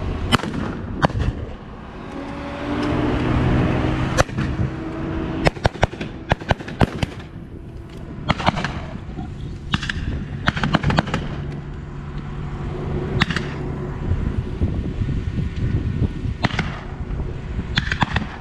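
Scattered gunfire from blank-firing small arms: single shots throughout and a quick cluster of several shots about six seconds in. A steady low engine hum from the diesel locomotive runs underneath at times.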